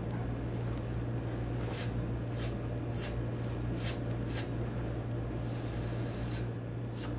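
A martial arts student working through a blocking set (star block): a short, sharp hiss comes with each movement, five in about three seconds, then a longer hiss lasting about a second. A steady low hum runs underneath.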